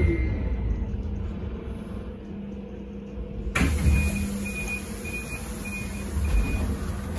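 Sinara-6254 trolleybus: a steady low rumble with a hum, then a sharp clunk about halfway through as a high hiss starts, followed by five short, evenly spaced beeps.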